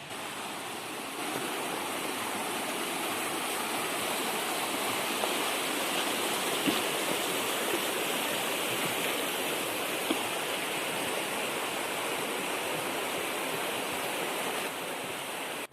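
Mountain stream rushing: a steady, dense rush of flowing water that starts suddenly, grows a little louder about a second in, and cuts off abruptly.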